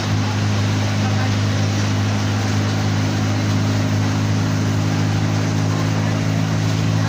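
Mercedes-Benz OF-1722M bus running at a steady speed: a loud, steady low drone that holds one pitch, the growl of its noisy differential, over engine and road noise.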